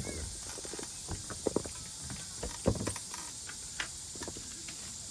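Camping gear being handled: irregular light knocks and clicks, with two louder thumps about one and a half seconds and nearly three seconds in, over a steady high hiss.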